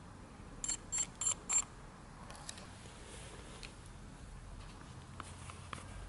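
Four quick high-pitched electronic beeps about a third of a second apart, followed a few seconds later by a few light clicks.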